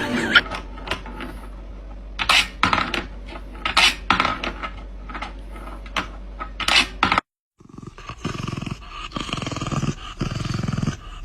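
An animal making repeated low growling or grunting sounds in short pulses. Before it comes a stretch of sharp knocks and clicks over a steady low hum, cut off abruptly by a brief silence.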